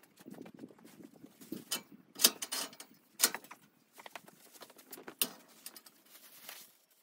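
Scuffing footsteps on a stone-tiled porch and the handling of a straw broom and dustpan, with several sharp knocks, the loudest about two seconds in.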